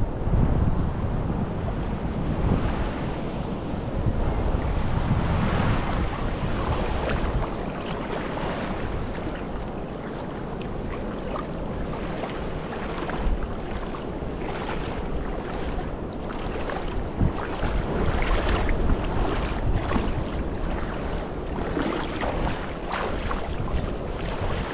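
Small waves lapping and washing over the sand at the shoreline of a calm sea, with wind rumbling on the microphone.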